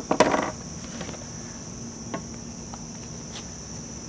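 A brief clatter about a quarter second in as the metal cowling of a homemade electric outboard motor is unlatched and lifted off, followed by a few light clicks. A steady high-pitched insect chirring runs underneath.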